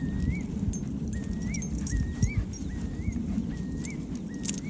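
Eurasian curlew calling: a whistled rising 'cur-lee' note repeated over and over, about every two-thirds of a second, over a low steady rumble.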